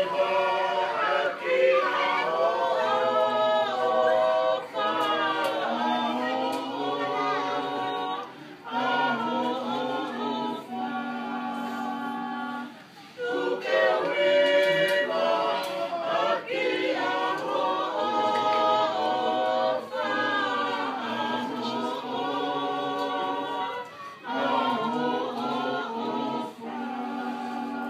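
A group of voices singing a cappella in harmony, holding long notes in phrases broken by short pauses.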